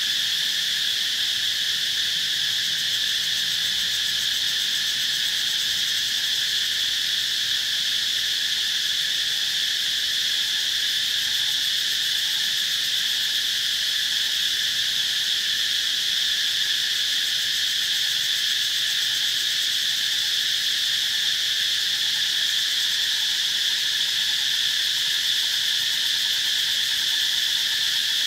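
A steady chorus of insects: a continuous high-pitched buzz in several pitches that goes on without a break or change.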